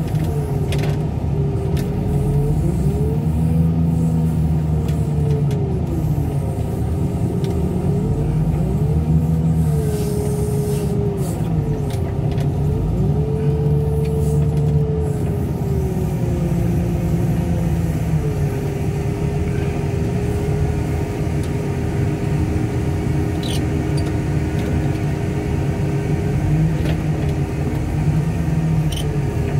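Diesel engine and hydraulics of heavy car-crushing equipment running steadily under load, with a low rumble and a whine that repeatedly rises and falls in pitch as the machine works.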